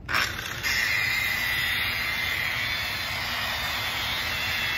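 DeWalt rotary polisher starting up at its lowest speed (600) and spinning a stiff bristle brush against a wet carpet floor mat. The motor comes up in two quick steps in the first half second, then runs as a steady high whine over the brush's scrubbing hiss.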